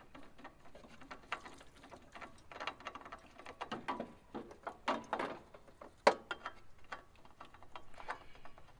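Irregular metallic clicks and clatter of hand tools working the oil filter off a John Deere D130 riding mower's engine, with one sharp loud click about six seconds in.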